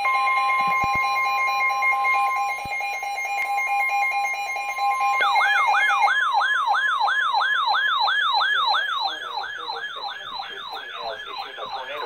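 Two NOAA weather radios sounding a tornado warning alert. A steady electronic alarm beep plays together with the broadcast's steady warning alarm tone. About five seconds in, a fast warbling siren alarm starts, sweeping up and down about three times a second, and the steady tones stop within the next second.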